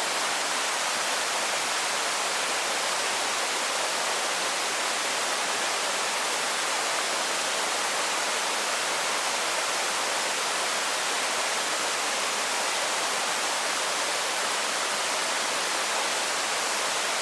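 Waterfall pouring steadily: a constant, even rush of falling water, with no breaks or separate events.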